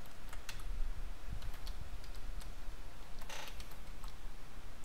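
Computer keyboard keys tapped in short, irregular clicks as a password is typed.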